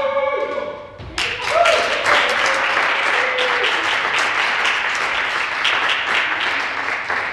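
A group's voices trail off, then about a second in a group of people breaks into applause, with a few cheers over the clapping. The applause echoes in a large sports hall.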